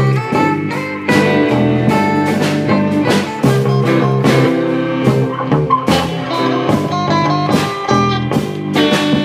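Instrumental band music: guitar over a steady drum beat, with no singing.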